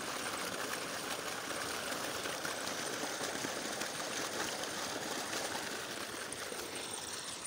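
Steady rush of water gushing from the outlet pipe of a solar-powered irrigation pump.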